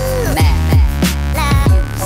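Electronic dance music with deep sustained bass and repeated kick-drum hits under a gliding synth melody.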